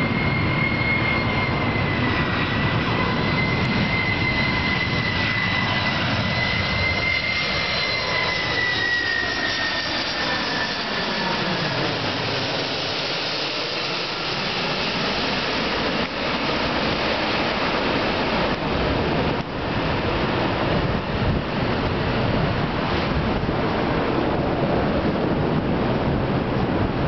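McDonnell Douglas MD-11 trijet's turbofan engines passing low overhead on approach: a loud jet roar with a high fan whine that drops in pitch as the aircraft goes over, about ten seconds in. The roar carries on steadily as the jet moves away toward the runway.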